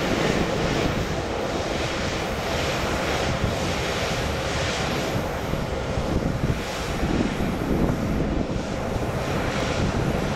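Sounder commuter train's bilevel coaches rolling past and moving away: a steady rumble of wheels on rail.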